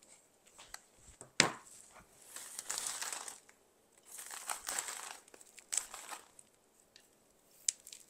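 Crinkling and rustling as dry craft materials are handled on a tabletop, in three stretches, with a sharp click about a second and a half in and another near the end.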